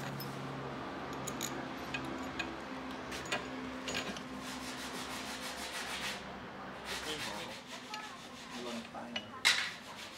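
Hand-tightening of propeller bolts and washers on a model aircraft engine: rubbing and scraping with scattered small metal clicks. A faint steady hum runs underneath, and a short cluster of louder clicks comes near the end.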